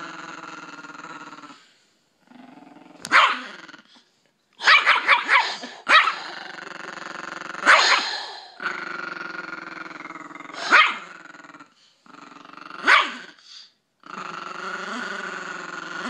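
Chihuahua growling long and steady through bared teeth, broken by short, sharp barks every second or two, with a quick run of several barks about five seconds in. It is a protective warning growl at a person coming near his owner.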